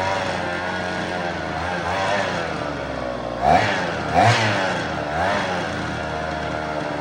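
Vintage Husqvarna 50 two-stroke chainsaw engine running and being revved in short throttle blips, the two loudest about three and a half and four seconds in. The saw has low compression, which the owner puts down to weak piston rings.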